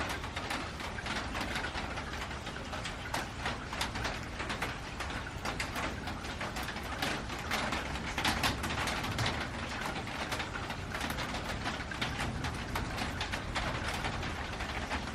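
Rain falling on a metal roof: a dense, steady stream of drops ticking on the metal, a little heavier about halfway through.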